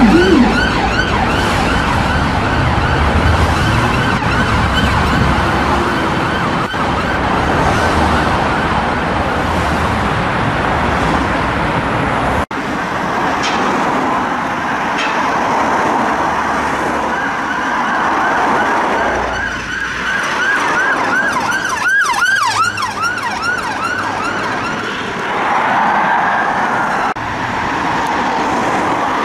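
Emergency vehicle sirens: the Audi A6 Avant doctor car's fast yelp, with a brief low rumbler tone at the very start, fading as it goes away. Then a second emergency vehicle's siren through traffic, yelping and then wailing more slowly.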